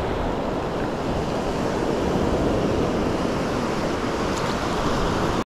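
Ocean surf washing up the beach, with wind buffeting the microphone: a steady rushing noise that cuts off suddenly at the end.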